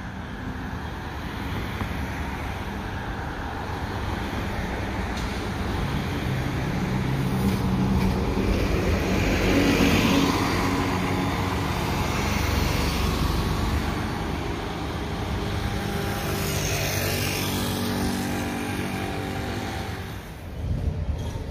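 A city transit bus passing close by, its engine and tyres loudest about halfway through, over steady street traffic.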